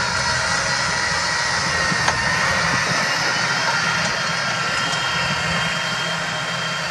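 Case Optum 270 tractor's six-cylinder diesel running steadily under load, pulling a three-axle Schuitemaker Robusta slurry tanker and injector, with a steady high whine over the engine. There is a single sharp click about two seconds in.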